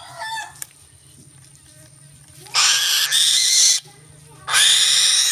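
A bird of prey giving two harsh, hissing screeches, each about a second long, the second starting about a second after the first ends.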